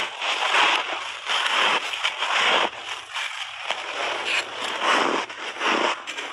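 Close-up chewing of crunchy refrozen pink berry shaved ice: a run of loud, irregular crunches, one after another every half second or so.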